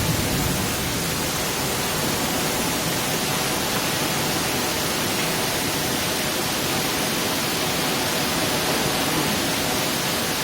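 Heavy downpour of rain: a steady, even hiss with no breaks.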